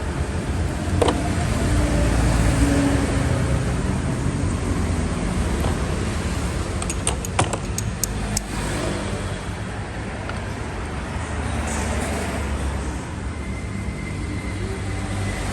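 Car running with a steady low rumble, and a brief run of sharp clicks about seven to eight seconds in.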